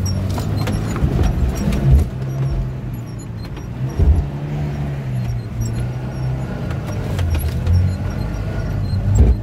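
A 4x4 SUV's engine heard from inside the cabin, running in low gear over rough muddy ground, its speed rising and falling. Occasional knocks and thumps come through as the vehicle jolts over the ruts.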